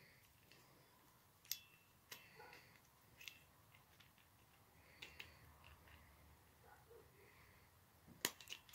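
Faint, scattered clicks and light metal taps of a moped's centrifugal clutch shoes and springs being handled and fitted together by hand, the sharpest click near the end.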